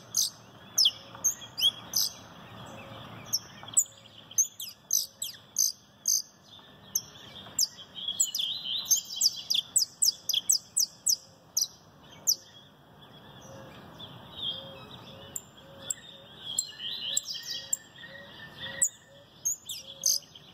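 Caged canário (the Brazilian saffron finch) singing: spurts of sharp, quick down-slurred notes and rapid trills with short pauses between. Other birds are faint in the background.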